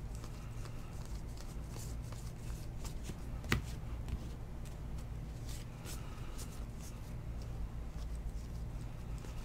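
A stack of 2019 Bowman baseball cards being flipped through by hand, the slick cards sliding and ticking against each other in quick, irregular clicks, with one sharper click about three and a half seconds in. A steady low hum runs underneath.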